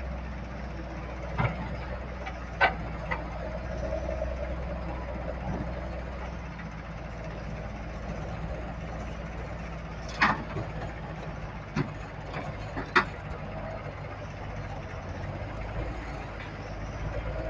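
Komatsu D155A-2 bulldozer's diesel engine running steadily, with a handful of sharp metallic clanks: a few in the first three seconds and three more between about ten and thirteen seconds in.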